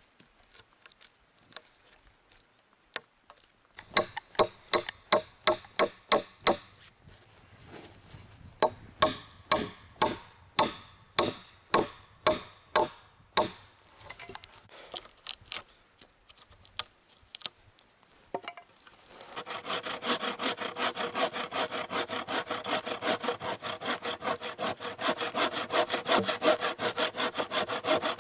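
Hand sawing into a pine log: two runs of slow, separate saw strokes, then after a short lull a fast, continuous run of strokes with a wooden-framed bow saw from about 19 seconds in.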